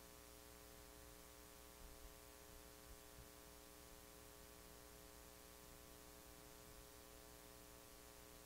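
Near silence: a faint, steady electrical hum with hiss, and a few soft small knocks around two to three seconds in.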